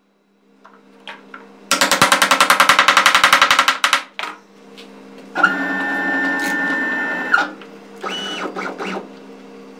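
Machine running in short spells: a rapid rattle of about ten ticks a second, then a steady whine that stops suddenly, and a shorter whine near the end, over a steady hum.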